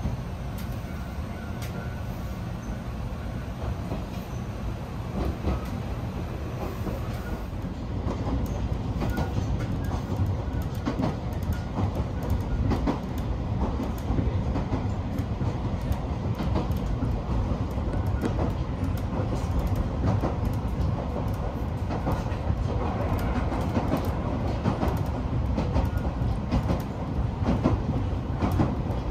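Alpico Kōtsū Kamikōchi Line electric train running, heard from on board: a steady low rumble with wheels clicking over rail joints. It grows louder about eight seconds in.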